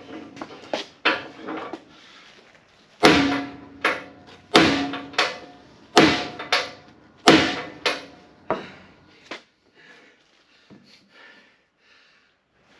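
Hammer blows ringing on steel, driving a freezer-chilled press-fit part into a steel boss. A few lighter knocks, then eight heavy strikes in quick succession about two-thirds of a second apart, then a few faint taps. Going by the speakers, the part is still moving, but less with each blow.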